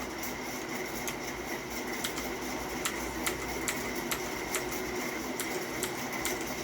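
Havit KB498L mechanical keyboard's blue switches clicking as keys are pressed one at a time, in an uneven rhythm of roughly two clicks a second.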